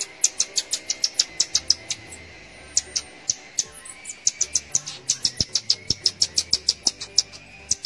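A rapid series of short, high-pitched chirps, about six a second, thinning out to a few in the middle and then picking up again.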